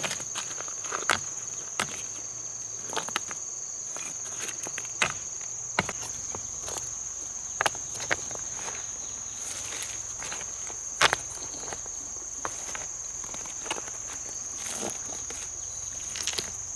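A steady, high-pitched insect trill, with irregular sharp taps and knocks scattered through it.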